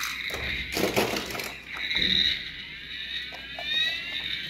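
Battery-operated toy ambulance's electronic siren sounding in high, tinny steady tones, with rising glides toward the end. A clatter of handled plastic comes about a second in.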